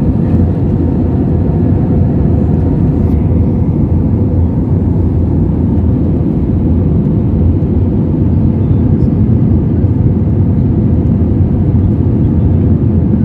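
Jet airliner cabin noise in flight: a steady low rumble of engines and airflow, with a faint steady hum.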